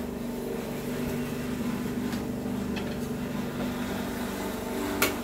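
A steady mechanical hum runs underneath a few light clicks of plastic toy dishes being handled, with a sharper click near the end.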